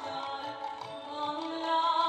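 Music with long held melodic notes over a soft, steady low drum pulse.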